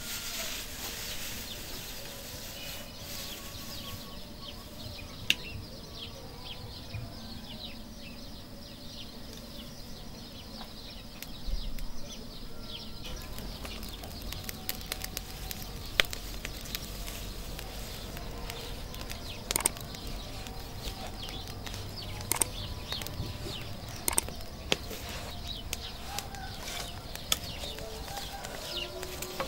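Straw fire crackling in the firebox of a mud-and-straw village bread oven, with sharp pops scattered through, more of them in the second half, and straw rustling as it is fed in.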